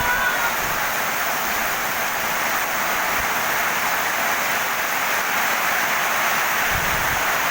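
Steady rain falling on a garden.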